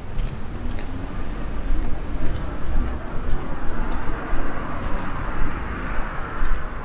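Outdoor street ambience: a steady low rumble with faint footstep clicks, and a small bird chirping several high, gliding notes in the first two seconds. A traffic hiss swells from about halfway through.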